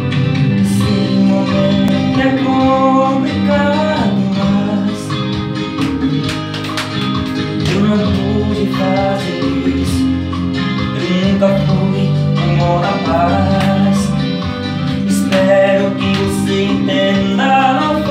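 Music: a guitar-led instrumental passage over bass and drums, as the intro of a Portuguese-language pop love song.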